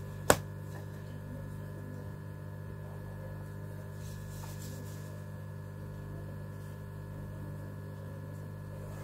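Steady low hum made of several steady tones throughout, with one sharp click about a third of a second in and faint pencil scratching on paper around the middle.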